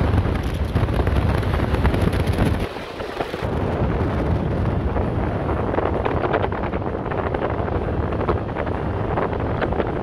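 Wind buffeting the microphone from a moving off-road vehicle driving along sand, over a steady low rumble of engine and tyres. The sound dips briefly and changes about three seconds in, then runs on steadily.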